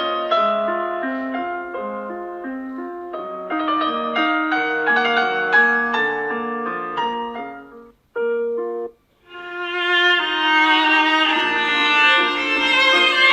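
Samsung Galaxy Note 20 Ultra ringtones: a melody of short piano-like notes fades out about eight seconds in. After a brief gap with one short note, a new ringtone with violin begins.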